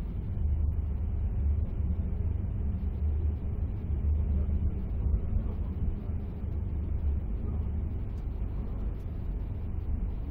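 Low, steady rumble of a passenger train's wheels and running gear, heard from inside a first-class compartment of a type 156A intercity carriage as the train picks up speed out of the station.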